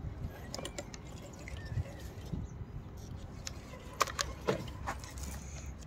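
Traxxas TRX-4 RC crawler's tyres and chassis clicking and knocking on hard, dry clay chunks as it climbs, over a low rumble. A few light clicks come a little under a second in, and a cluster of sharper knocks comes about four seconds in.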